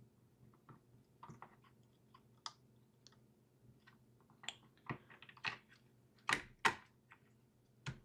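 Plastic and metal clicks and taps of the Minisforum M1 Pro mini PC's bottom cover being fitted back onto the case, with two sharper snaps a little past the middle and another near the end as it is pressed into place.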